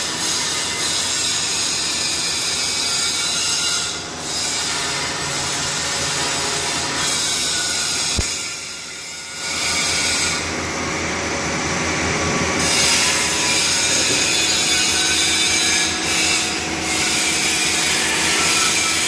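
Argon (TIG) arc welding: a steady, loud hiss that dips briefly about four seconds in and again for about a second around eight to nine seconds in.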